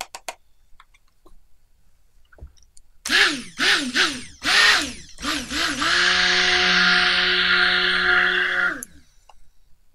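Immersion stick blender mixing kaolin clay into raw soap batter of oils and lye water. It is pulsed in several short bursts, each spinning up and down, then runs steadily for about three seconds before switching off.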